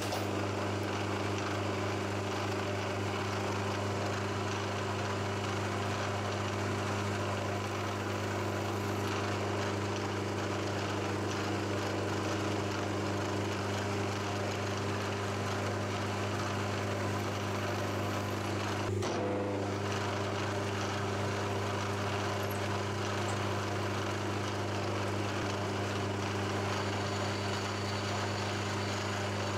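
Milling machine running steadily, its spindle motor giving an even hum, while a spot drill spots hole positions in an aluminium block. One short click about two-thirds of the way through.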